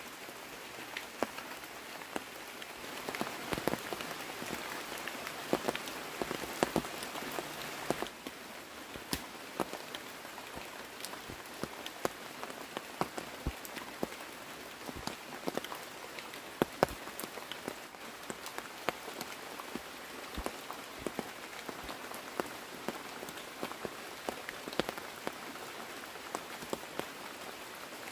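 Steady rain hissing, with many single drops tapping sharply and unevenly on a nearby surface.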